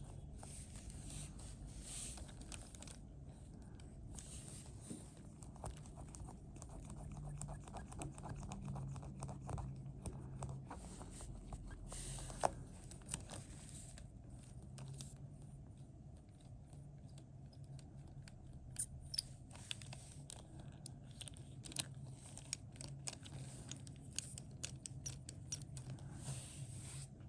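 LEGO Technic model with pneumatic suspension being handled and worked: plastic parts click, rattle and scrape, with short stretches of hiss in between.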